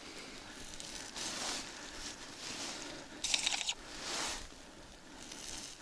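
Quiet rustling and crunching handling noises, coming in a few short swells with no voice.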